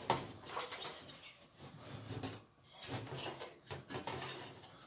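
Irregular clicks, light metal rattles and rustling as an oven's bottom heating element and its wire connectors are handled and fitted inside the sheet-metal oven body.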